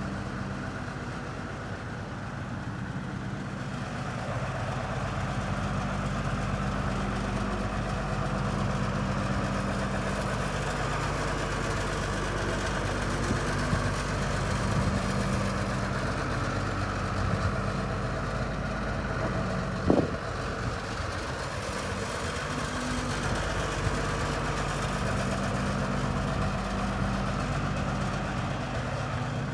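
Volvo EC240LC excavator's Cummins C8.3 six-cylinder diesel engine running steadily, growing a little louder about four seconds in. A single sharp metallic knock comes about two-thirds of the way through.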